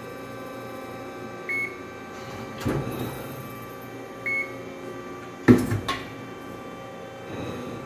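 Amada RG100S hydraulic CNC press brake running with a steady hum, two short electronic beeps about one and a half and four seconds in. A clunk near three seconds, then a loud sharp clunk with a few quick knocks about five and a half seconds in as the ram moves down.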